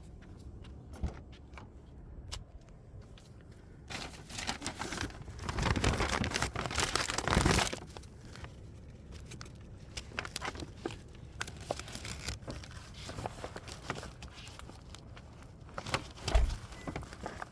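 Rustling and crinkling of a takeout food bag being picked up and handled, loudest for a few seconds near the middle, with scattered clicks and knocks and a thump near the end.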